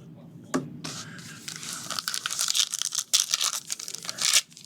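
Plastic wrapper of a trading card pack being torn open and crinkled. There is a sharp click about half a second in, then crackling and ripping that grows louder from about two seconds in and breaks off just before the end.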